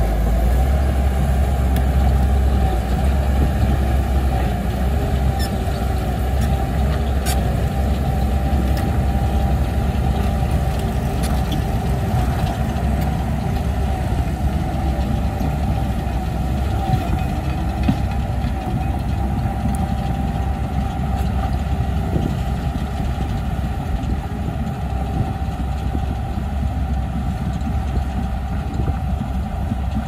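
Bulldozer's diesel engine running steadily at a constant pitch, with a few faint sharp clicks over it.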